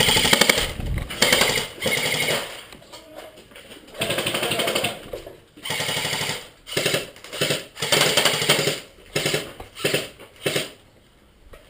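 Airsoft gun firing on full auto in about a dozen short bursts, each a rapid mechanical rattle lasting under a second. The bursts stop shortly before the end.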